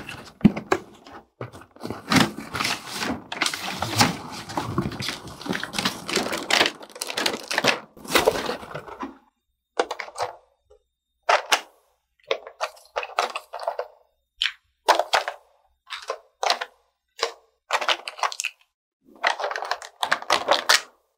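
Thin clear plastic packaging tray crinkling and crackling as it is handled. The sound is continuous for the first nine seconds or so, then comes as short separate crackles as plastic toy pieces are pulled out of the tray one by one.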